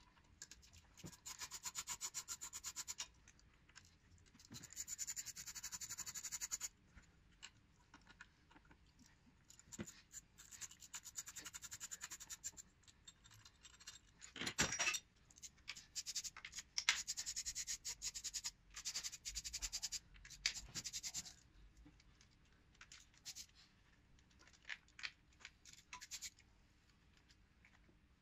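Hand ratchet clicking in fast runs of a few seconds each as fasteners are wound out under the bonnet, with a single louder knock of tools or parts about halfway through.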